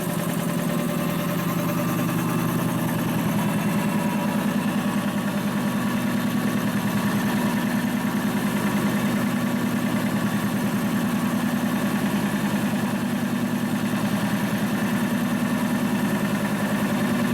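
Rebuilt DeVilbiss DevAir 445 two-stage industrial air compressor running steadily under load, building tank pressure, with a fast even pulsing beat. It runs smoothly, without clatter or rattle.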